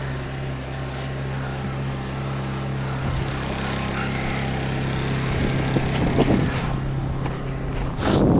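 Portable generator running steadily at high idle, with irregular scuffing and knocking noises from about five seconds in, loudest near the end.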